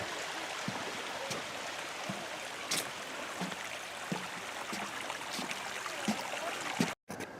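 Water running steadily down a small waterfall, with soft footsteps about every two-thirds of a second. The sound cuts out briefly near the end.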